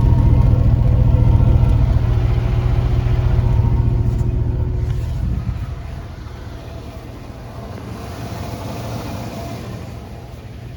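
GMC Sierra pickup's exhaust running through its original stock muffler, which has a few holes in it: a steady low engine drone. About five seconds in it drops sharply in level and stays quieter.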